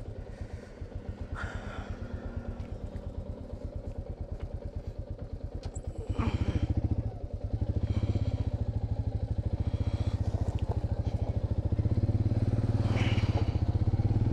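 Royal Enfield Meteor 350's single-cylinder engine idling with an even, regular thump. About six seconds in it revs up and the bike pulls away, the engine running louder under load.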